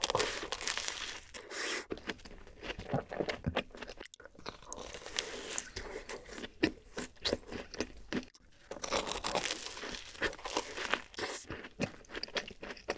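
Close-miked eating: bites and chewing of cream-filled dacquoise sandwich cookies and a chocolate-coated cake, with crisp crackly crunching from the meringue shells. The sound breaks off briefly twice.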